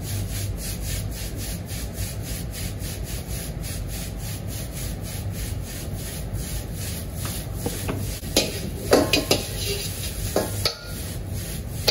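Fried rice tossed in a wok over a gas wok burner: a steady rhythm of rice sliding and scraping across the pan over the burner's low, steady rumble. From about eight seconds in, a metal ladle scrapes and knocks against the wok as the rice is stirred.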